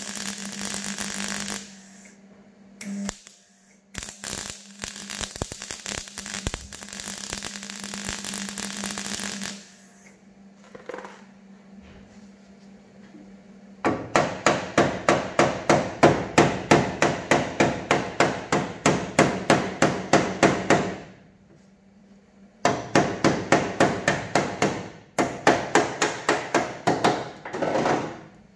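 Welding arc crackling in bursts on the car's steel body panel, over a steady hum. About halfway through, rapid hammer blows on the sheet steel take over, about four a second, in three runs with short breaks.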